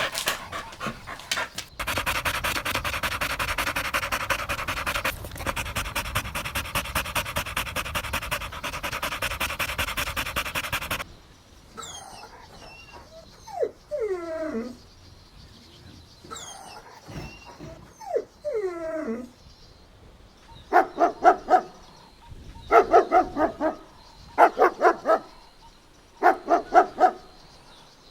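A dog panting fast and steadily for about ten seconds. A few whines falling in pitch follow, then short runs of quick barks, several barks in each run, coming about every two seconds.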